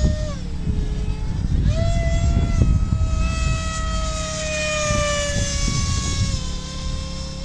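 Radio-controlled model airplane's motor and propeller whining in flight. The pitch drops about half a second in, climbs again after about two seconds, then sinks slowly. Wind rumbles on the microphone.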